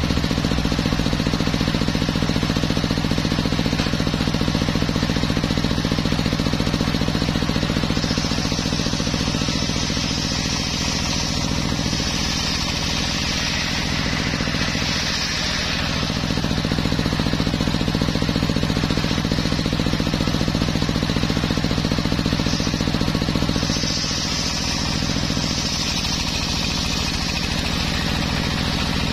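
Homemade circular sawmill running steadily while its blade saws through teak wood. A higher sawing noise comes in about eight seconds in, fades around sixteen seconds, and returns about twenty-four seconds in.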